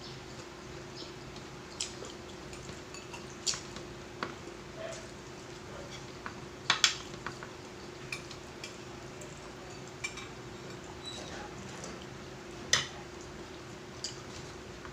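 Spoons and forks clinking and scraping on plates while eating, in scattered sharp clinks; the loudest come as a quick pair about seven seconds in. A steady low hum runs underneath.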